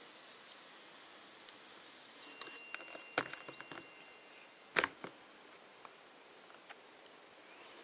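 Handling noise on a handheld camera: a scatter of small clicks and knocks, the sharpest about three seconds and nearly five seconds in, over a steady faint hiss. A thin steady high whistle sounds for about two seconds in the middle.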